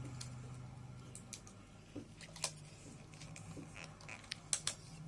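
Quiet room tone: a low steady hum with a few faint, short clicks or taps scattered through, two of them close together near the end.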